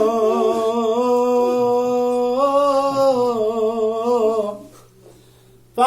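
A man singing unaccompanied, holding one long wordless note in Egyptian mawwal style. The note steps up in pitch about two and a half seconds in and fades out a little after four seconds, followed by a brief hush.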